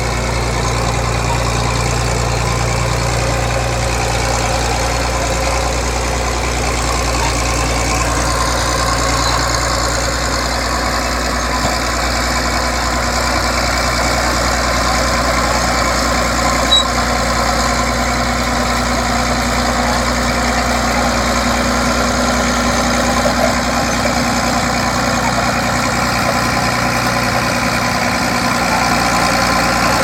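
Vintage crawler bulldozer's engine running steadily under load as its blade pushes soil.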